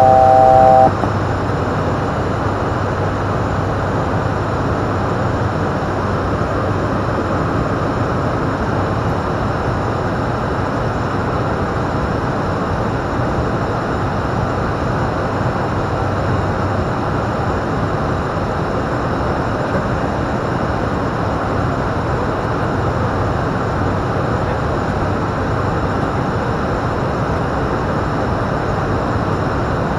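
Steady drone of an ATR 42-500's turboprop engines, propellers and airflow heard in the cockpit, unchanging throughout. A loud electronic tone of three pitches sounding together cuts off about a second in.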